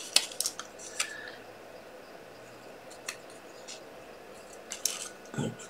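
Scissors snipping through paper card in short, irregular snips, several in the first second and a few more near the end.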